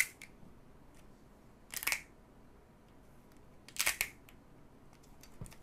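Two short rustling scrapes about two seconds apart, with a faint click at the start, as a plastic-wrapped 4S1P lithium battery pack lined with paper insulating sheets is handled and pressed into the aluminium case of a spot welder.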